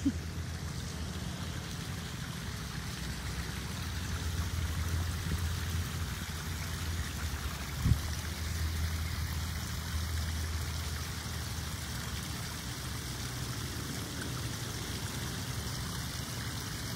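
Small rock waterfall splashing into a backyard koi pond: a steady trickling rush of falling water over a low rumble, with one brief knock about eight seconds in.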